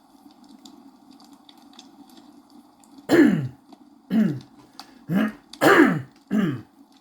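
A person coughing or clearing their throat five times in quick succession, each cough voiced and dropping in pitch, starting about three seconds in.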